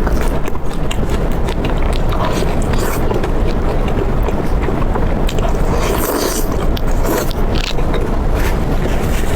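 Close-miked eating: chewing and wet mouth clicks, many short ones in irregular succession, over a steady low rumble.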